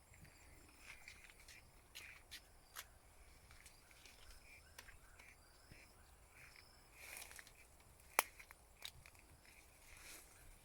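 Near silence outdoors, with faint scattered clicks and brief high chirps, and one sharper click about eight seconds in.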